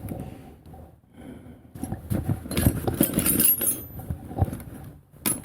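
Metal hand tools clinking and clattering as someone rummages through them looking for a screwdriver, in irregular knocks and jingles that start about a second and a half in.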